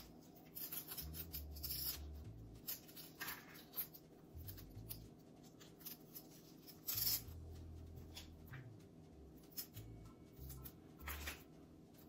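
Intermittent rubbing and rustling as green plastic plant tie tape is pulled off its roll and wrapped around a Monstera stem and a coconut-fibre moss pole, with leaves brushing; the sharpest scrape comes about seven seconds in.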